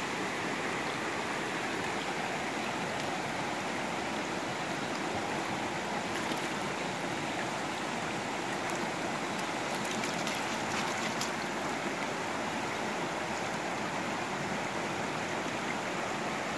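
Shallow rocky creek rushing steadily over stones and small rapids.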